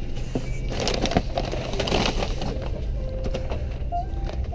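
Airbus A330 cabin during boarding: a steady low cabin hum with scattered clicks and rustling, a stretch of hiss from about one to two and a half seconds in, and music in the background.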